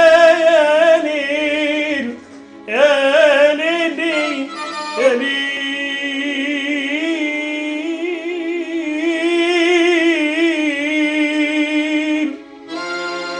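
A man singing a slow, free-rhythm melismatic Arabic vocal line: long held notes with wavering ornaments and sliding pitch. He breaks off briefly about two seconds in and again near the end.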